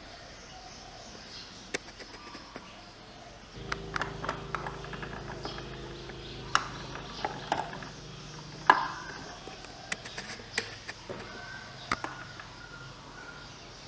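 Scattered clicks and taps of small plastic toy kitchen cabinet doors being opened and tiny toy food and bottles being handled, the sharpest click about eight and a half seconds in. A low steady hum comes in about three and a half seconds in.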